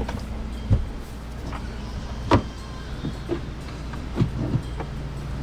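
Several short knocks and clunks, the loudest about two seconds in, over a steady low hum.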